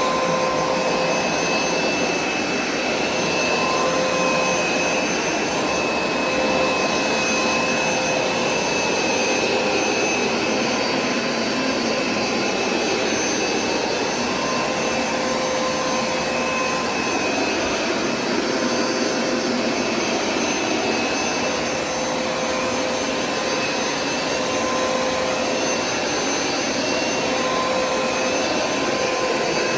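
Hoover SmartWash carpet cleaner running steadily: a whining suction motor over an even rushing of air as it washes and extracts a stained carpet.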